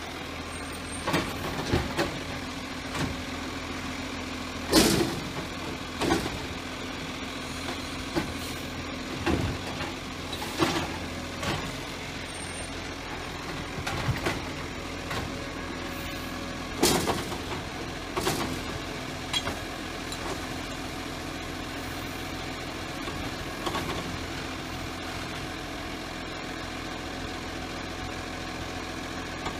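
Side-loader garbage truck working a row of wheelie bins. The diesel engine runs steadily with a steady hydraulic hum, and the automated arm grabs and lifts bins with repeated clunks and knocks. Short air-brake hisses come as the truck stops between bins, the loudest about 5 and 17 seconds in.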